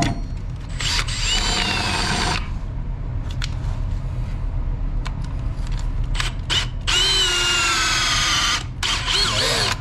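Cordless drill boring into the wood-and-fiberglass laminate around a boat's stern tube: two runs of about a second and a half each, the motor whine bending in pitch as it bites, with small knocks and clicks from handling the drill between them.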